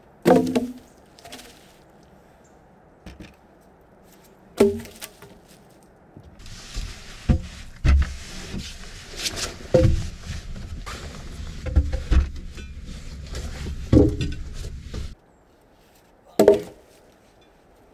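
Lengths of log thrown out of a dugout doorway, landing with wooden thuds three separate times. In between, a stretch of rustling with repeated wooden knocks as logs are shifted about inside.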